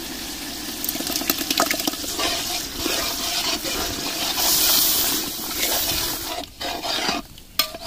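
Curd poured into a boiling tomato-onion masala in a large aluminium pot and stirred in with a steel ladle: bubbling and wet splashing, loudest and hissiest about halfway through.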